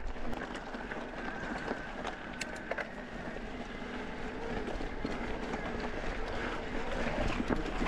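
Mountain bike rolling along a rocky desert dirt trail: steady tyre noise on gravel, with sharp clicks and rattles as the bike goes over stones.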